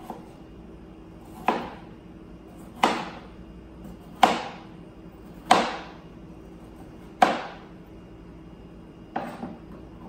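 Kitchen knife slicing through a raw potato and striking a plastic cutting board: six sharp chops, about one every second and a half.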